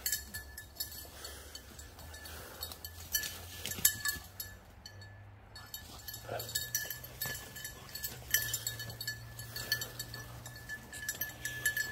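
A bird dog's bell collar jingling on and off as the dog works the cover, falling quiet for a moment about halfway through, with rustling in the brush.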